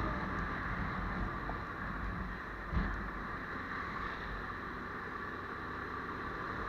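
Motorcycle engine running steadily under way, with wind and road noise on the helmet-mounted camera's microphone; a single brief knock about three seconds in.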